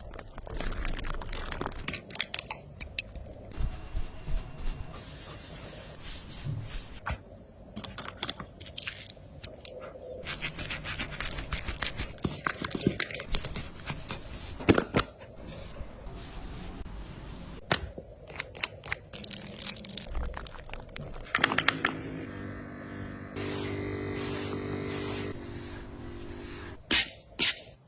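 Close-miked dog grooming sounds: repeated scraping, crunching and hissing strokes, with a steady electric hum for a few seconds near the end.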